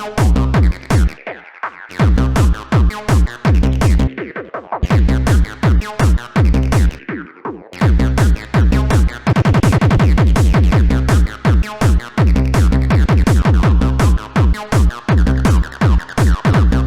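Electronic dance music with a heavy, pounding kick drum and bass. The beat drops out briefly a couple of times, then a fast drum roll builds about nine seconds in before the full beat returns.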